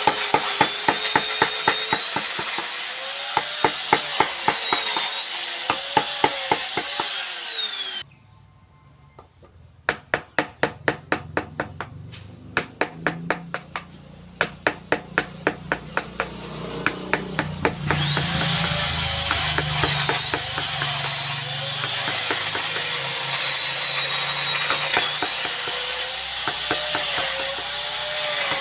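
Wood carving: quick, evenly spaced taps of a carving tool on wood, joined by a power tool's whine that rises and falls in pitch. The taps stop about two-thirds through, and from there the whine runs alone.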